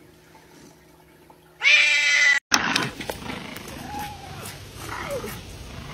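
A cat's loud, drawn-out meow, held at one pitch for just under a second. After a sudden cut comes a steady rustling noise with a couple of faint short whines.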